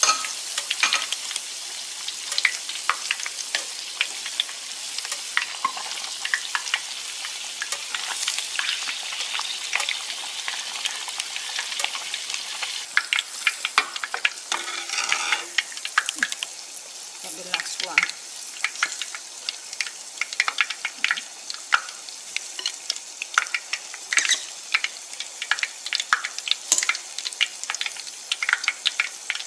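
Mung bean and shrimp batter cakes deep-frying in hot oil: a steady sizzle full of sharp crackles and pops.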